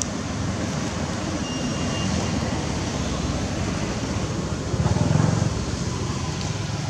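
Steady outdoor background noise, a low rumble with hiss, swelling briefly about five seconds in.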